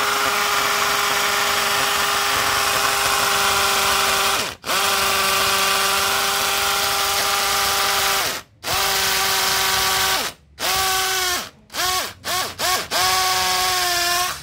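DeWalt DCD709 Atomic compact brushless cordless drill boring into ceramic floor tile over concrete, its motor whining at a steady pitch. The drill stops briefly twice, then is blipped on and off several times in quick succession before running again, spinning up each time it restarts.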